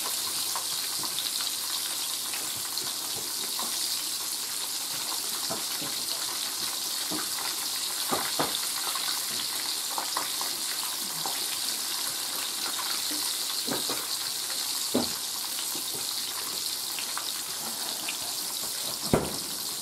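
Flour-coated chicken fried steak frying in oil in a skillet: a steady sizzle with scattered crackles and pops. A sharp knock near the end.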